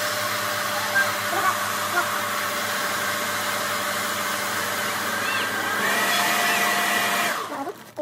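Hair dryer running steadily, blowing air into an inflatable toy's open valve. It switches off about seven seconds in.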